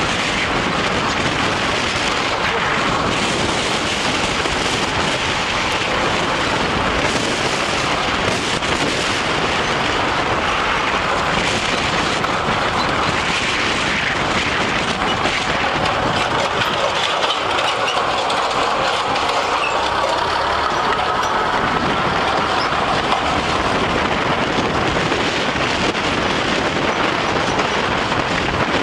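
Road noise from a car driving over a bridge deck: a steady rush of tyres and wind with many small knocks as the tyres pass over bumps and joints in the worn surface.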